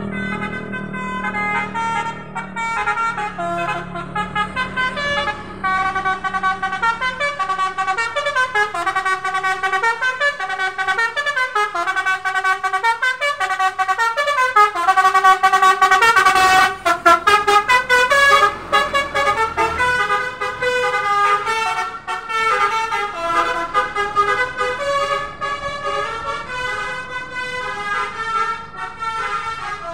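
A tour bus's Basuri multi-tone musical horn (telolet horn) playing a long run of melodies, the notes changing in quick steps. It is loudest about halfway through.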